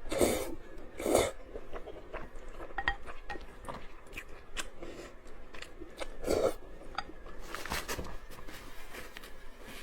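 Close-miked eating of spicy rice noodles with tofu skin: chewing and biting, with a few louder bites near the start, about a second in, and again around six and eight seconds, and small clicks between them.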